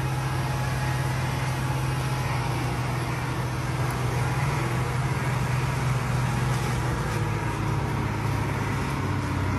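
Tractor engine running at a steady, even note.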